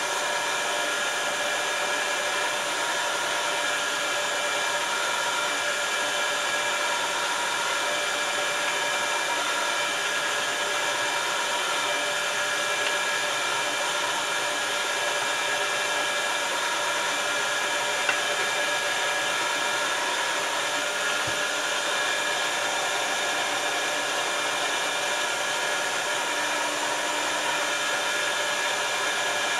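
Electric meat grinder with a sausage-stuffing tube running steadily, its motor whirring without a break as sausage meat is pushed through into the casing.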